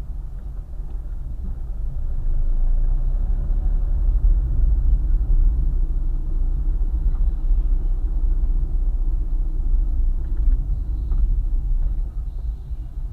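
Car driving on a highway: a steady low rumble of engine and tyre noise, growing louder about two seconds in.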